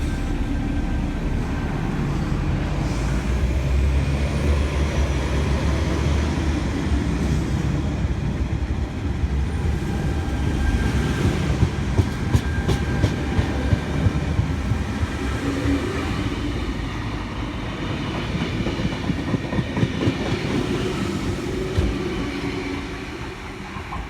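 V-set double-deck electric intercity train pulling out and running past with a steady rumble. Its wheels clack sharply over rail joints in two spells, one about halfway through and one near the end.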